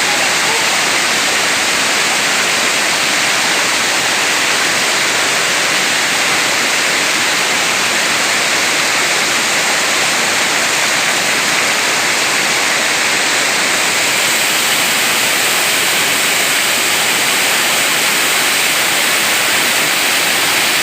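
Large waterfall: falling water rushing loudly and steadily.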